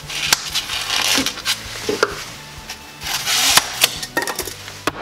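A blade cutting through XPS foam board in scratchy strokes, two longer ones about a second in and just past the middle, with a few sharp clicks in between.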